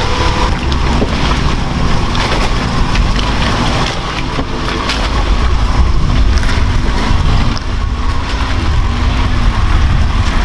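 Off-road truck engine running hard under load, its pitch rising and falling repeatedly as the throttle works, over a heavy low rumble with scattered clatter.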